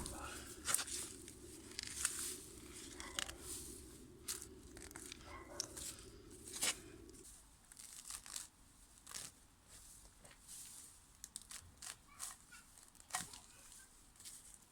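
Weeds and garden plants being pulled up and torn by hand, with irregular rustling, tearing and snapping. A low steady hum underneath stops about halfway through.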